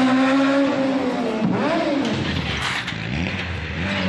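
Rally car engines revving hard as cars drive past. The engine note holds steady for about a second, then dips and rises again several times as the cars lift off and accelerate.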